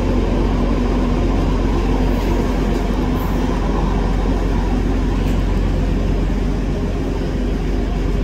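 Electric InterCity 225 express train (Class 91 set) pulling away along the platform: a steady low rumble and hum that eases slightly near the end as it moves off.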